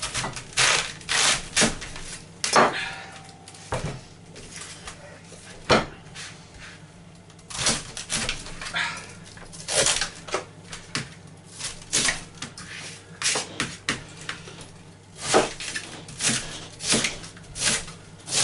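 Chef's knife cutting up a raw white cabbage on a plastic chopping board: irregular crisp crunches as the blade goes through the leaves and core, with knocks of the blade on the board.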